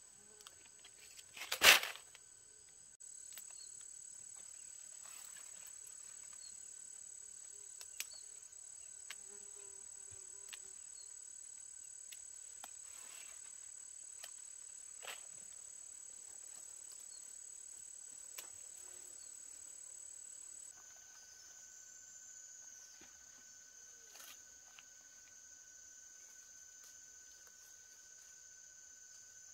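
Insects trilling steadily in a high pitch, the trill changing about 21 seconds in. A loud sharp rustle comes about two seconds in, and faint clicks and rustles follow as bean pods are picked into a woven basket.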